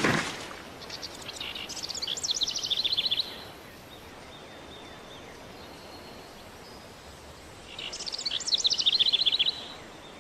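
Songbird singing two quick trilling phrases a few seconds apart, each a rapid run of high notes falling in pitch, over faint outdoor background ambience.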